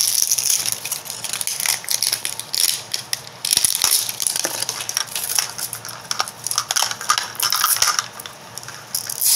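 Plastic wrap being peeled and torn off a Mini Brands toy capsule: a dense, irregular run of crinkling crackles and small clicks.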